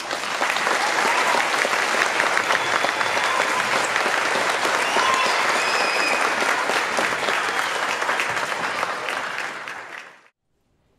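Large audience applauding steadily, with a few faint shouts mixed in, until the sound cuts off abruptly about ten seconds in.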